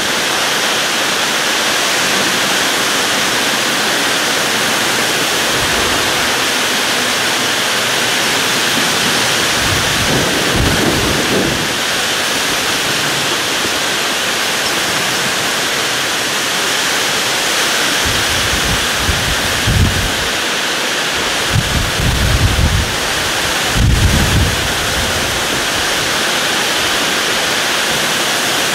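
Torrential thunderstorm rain driven almost sideways by storm-force wind: a dense, steady rushing. Deep low rumbles surge and fade several times in the second half.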